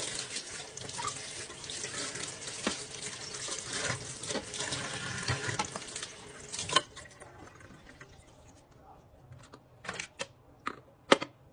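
Running water with occasional sharp clinks, which stops about seven seconds in; a few faint clicks follow.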